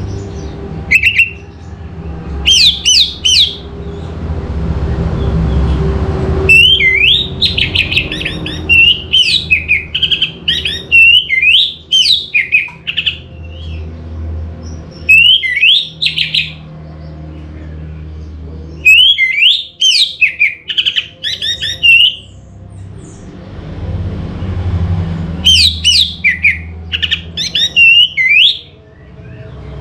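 Orange-headed thrush singing: phrases of quick, varied whistled notes lasting a second to a few seconds each, with short pauses between them, over a low background rumble.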